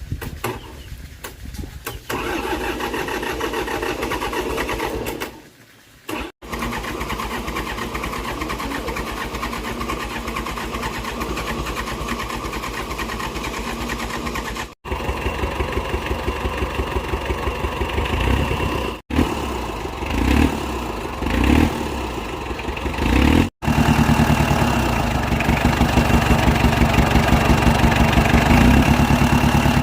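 Old tractor engine running with an even firing rhythm, in several short takes joined by abrupt cuts. In the later part it is given a few short revs, then runs steadily at its loudest.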